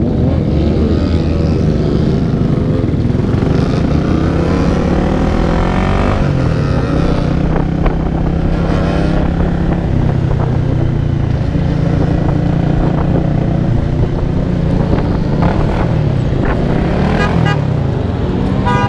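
The rider's own Honda 250 motorcycle engine running under way, its pitch rising and falling with throttle changes over the first several seconds, then holding steadier as it cruises.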